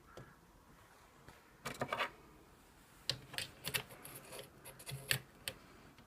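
Light plastic clicks and rattles from handling an opened Sony Dream Machine alarm clock and its parts: a short cluster about two seconds in, then a run of irregular clicks from about three seconds.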